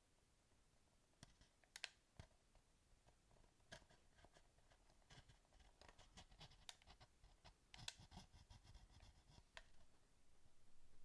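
Faint small clicks, taps and scratching of hard plastic parts being handled, as a PS4 controller is worked on by hand. The clicks come irregularly and grow thicker about halfway through.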